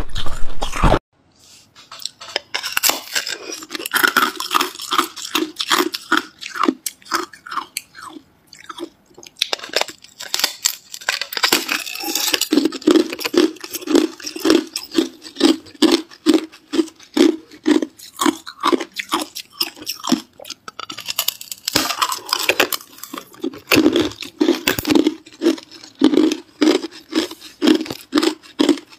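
Thin, brittle ice being bitten off and crunched between the teeth, with sharp crackling snaps, then chewed in a steady rhythm of about two crunches a second.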